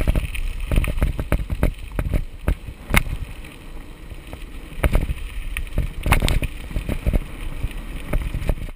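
Mountain bike riding fast down a gravel track: wind on the microphone and low tyre rumble, with frequent rattles and sharp knocks as the bike bounces over stones. The loudest knocks come about three and six seconds in.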